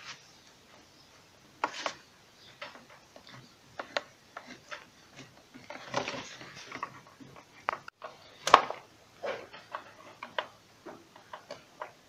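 Screws being tightened into a submersible pump's cover with a hand tool: irregular metal clicks and short scrapes, with one louder knock about eight and a half seconds in.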